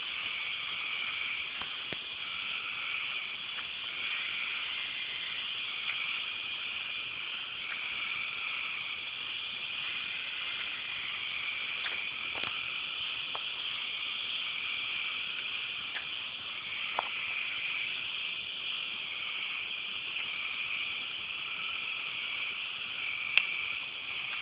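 A steady, dense chorus of crickets chirping after rain, with a few sharp clicks, the loudest near the end.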